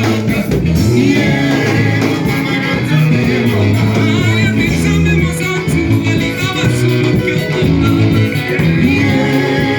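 Church worship music: a band with guitar and bass playing a steady groove, with singing over it.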